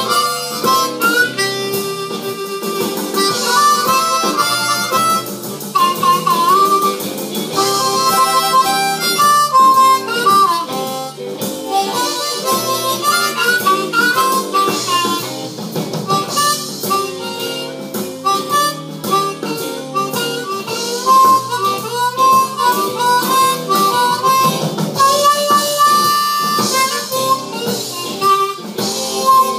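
Seydel 1847 Noble ten-hole diatonic harmonica, played stock out of the box with cupped hands, running through a blues-scale improvisation: quick changing notes with some bent notes sliding in pitch.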